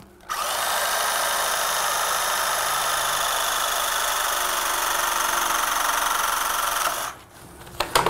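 Cordless pipe expander running steadily for about seven seconds, its motor driving the expander head to widen the end of a composite pipe so it will take a fitting. It starts just after the beginning and stops about a second before the end.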